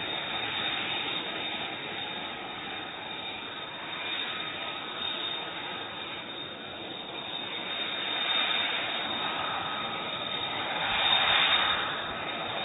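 F-35B fighter jet's engine running, a steady rush of noise with a thin high whine, growing louder about eleven seconds in.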